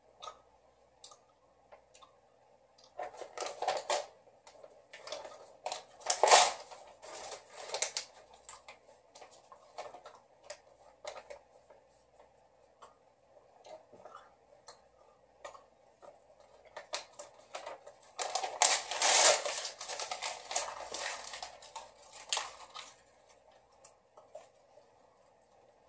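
Sheet of printer paper being torn and crumpled by hand in several bursts, with small clicks and handling noises between them.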